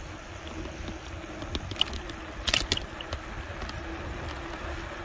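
Wind buffeting the microphone and tyre rumble on asphalt from a Jetson Bolt Pro e-bike riding down the street, with a faint steady hum under it. A few sharp clicks or rattles sound about two and a half seconds in.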